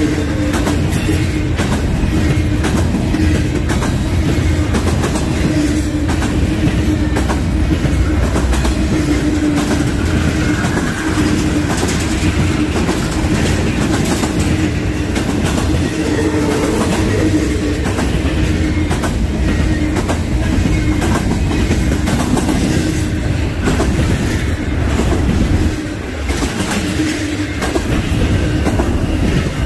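Intermodal freight train's well cars rolling past at close range: a loud, steady rumble with the wheels clicking over rail joints and a steady low hum.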